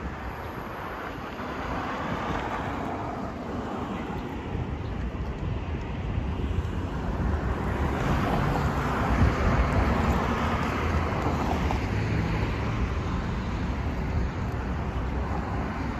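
City road traffic: cars driving past a pedestrian crossing as a steady wash of engine and tyre noise, swelling as a car passes about halfway through. Low wind rumble on the microphone underneath.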